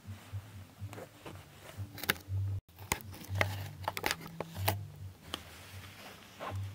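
Clear plastic model-train case being handled: a run of sharp plastic clicks and crinkles from the hard case and its bubble-wrap insert, busiest in the middle.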